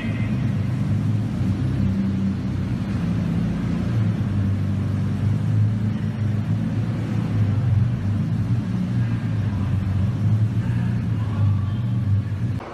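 Lamborghini Diablo's V12 engine rumbling at low revs as the car creeps along, a deep steady burble that rises and falls slightly, echoing in a concrete parking garage.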